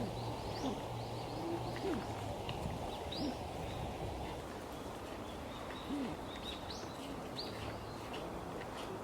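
Small birds chirping in short, scattered calls, a few of them quick rising notes, over a low outdoor background hum.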